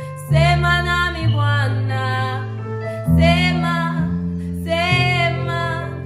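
A woman singing a slow worship song in long, wavering held notes over backing music of sustained chords and bass notes. Her phrases begin about a third of a second in, around three seconds in, and again near five seconds.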